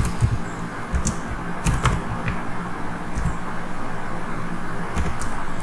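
Computer keyboard keys clicking in a few scattered keystrokes, over a steady background hiss and low hum.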